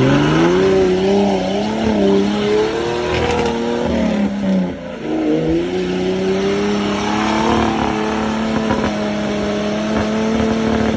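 Engine of an old Jeep-style off-roader held at high revs as it churns through deep mud, with mud and water splashing. The revs dip briefly about halfway through, climb back and hold steady to the end.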